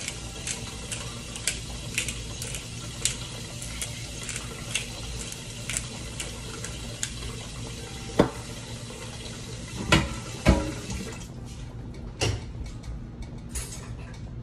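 A pot of water at a hard boil, hissing and bubbling steadily, with a seasoning shaker tapped over it about twice a second. Then a few louder clunks of pots and utensils, and the boiling hiss grows fainter near the end.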